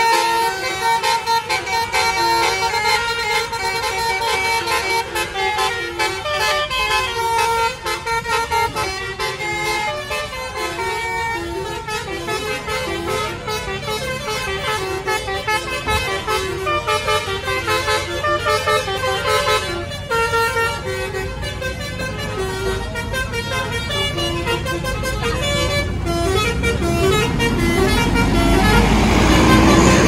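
Telolet bus horn: a set of electric trumpet horns playing a fast, stepping, repeated tune. Near the end the low rumble of a bus's engine grows louder as a bus passes close.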